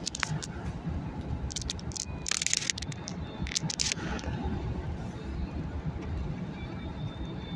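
Road and engine noise inside a moving car's cabin, a steady low rumble, with a cluster of sharp crackling and scraping clicks in the first four seconds.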